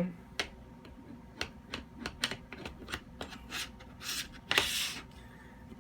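Metal air tube of a Vulcan 22 air rifle being slid into its barrel clamps: a run of small metallic clicks and taps, with two short scraping slides about four seconds in.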